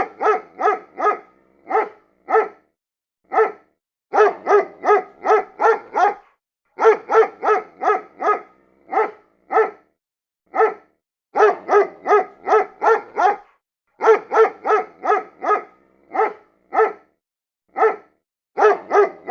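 A dog barking repeatedly in quick runs of several sharp barks, about three a second, with short pauses between the runs.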